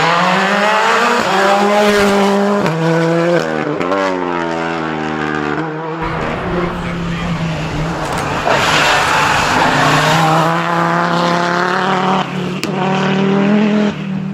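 Rally car engines at full throttle on a stage. The first car accelerates hard up through the gears, its pitch climbing and dropping back at each quick shift. After an abrupt change about six seconds in, another car revs up and down.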